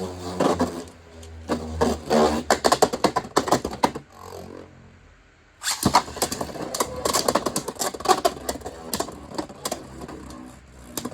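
Two Beyblade spinning tops, a 3D-printed Agèma Ares and a Dran Dagger, whirring and clashing in a plastic Beyblade X stadium, with rapid clacks and rattles of hits. The clashing eases off for a second or so about four seconds in, then starts again suddenly and keeps going.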